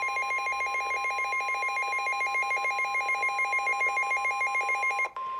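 Emergency Alert System attention signal for a snow squall warning: a loud, rapidly pulsing alarm tone over a steady high-pitched tone. About five seconds in the pulsing part breaks off, leaving the plain steady tone.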